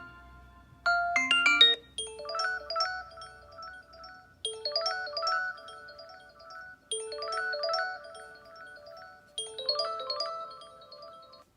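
Xiaomi Redmi Note 4 stock ringtone: a short chiming, mallet-like melody over a held low note, repeating four times about two and a half seconds apart. It is preceded about a second in by a quick run of notes from another tone that ends just before the ringtone begins.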